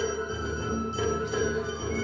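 Japanese festival hayashi ensemble playing: a shinobue bamboo flute holds a high melody over taiko drums, the large drum and small shime-daiko striking steady strokes about twice a second.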